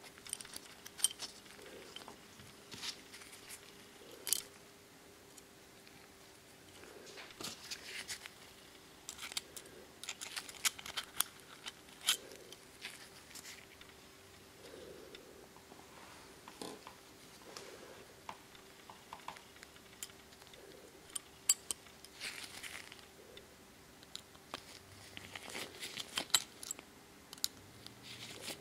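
Small metal parts and a screwdriver clicking and scraping against the brass frame of a Colt 1851 Navy-style cap-and-ball revolver during disassembly, with rustling of nitrile-gloved hands. The sharp clicks come at irregular intervals over a faint steady hum.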